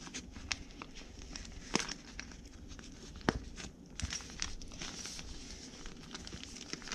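Thin plastic tool pouch crinkling as it is handled and unfolded, with a steady crackle of small clicks and a few sharper clicks about two, three and four seconds in.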